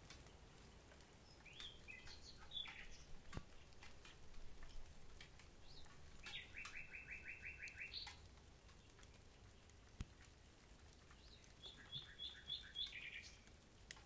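Common nightingale singing faintly in three short phrases, the middle one a fast run of repeated notes and the last a shorter run of repeated notes. Two sharp clicks, one a few seconds in and one about ten seconds in.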